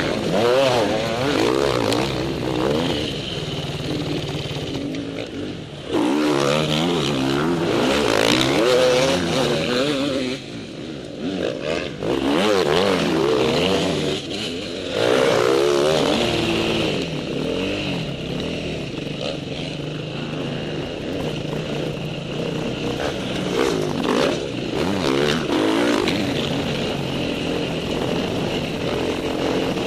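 Motocross bike engine revving up and down under hard throttle, heard close from a helmet camera: the pitch climbs and falls again and again through the gears, with a few short drops where the throttle is shut for the turns.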